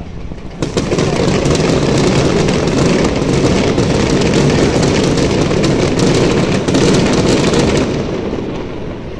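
A fireworks display firing a rapid barrage, a dense run of bangs and crackles that starts under a second in and eases off near the end.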